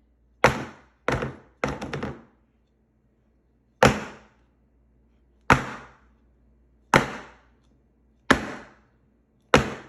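A pan of brownie batter knocked down on the counter to drive out the air bubbles: eight sharp knocks, three in quick succession, then five at an even pace about one and a half seconds apart.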